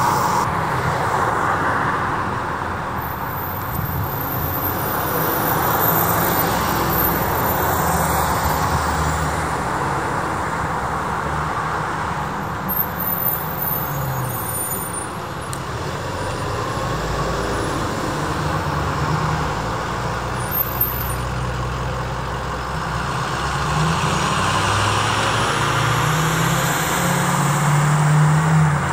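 Road traffic: vehicle engines and tyre noise passing by, with a large vehicle's engine rumble growing louder near the end.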